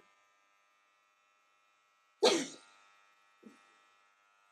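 Electric hair clippers running steadily with a low hum as they are held against the scalp. About two seconds in, one short loud burst of a person's voice, like a cough, stands out above the hum.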